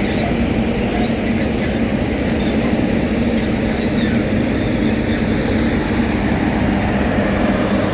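Heavy diesel road-construction machinery running steadily at a paving site, a loud constant engine hum with no change in pitch or rhythm.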